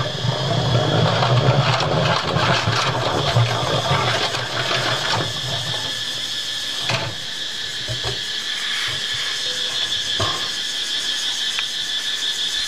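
Hand-cranked two-frame honey extractor spinning: the crank's gears and the frame basket rattle and whir inside the metal drum for about five seconds, then it slows and runs quieter, with a few single knocks later on.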